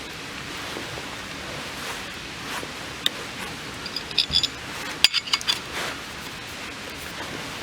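Steady rain hissing on a tarp, with a few light clinks that ring briefly, clustered between about three and five and a half seconds in.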